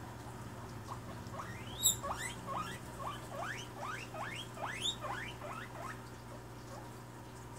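Guinea pig wheeking: a run of about a dozen squeaks, each rising steeply in pitch, roughly three a second, calling out to other guinea pigs. A single sharp click comes about two seconds in.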